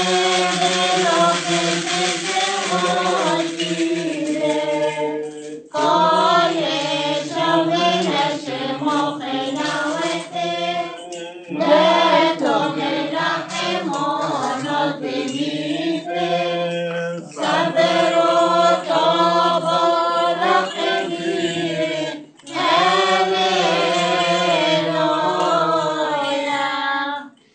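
Syriac Orthodox liturgical chant sung by a group of voices, in phrases of about five or six seconds, over a low steady note.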